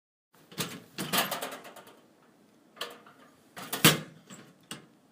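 A series of sharp knocks and clicks from something being handled: a single knock, then a quick rattling run of clicks about a second in, and a few more separate knocks, the loudest near four seconds in.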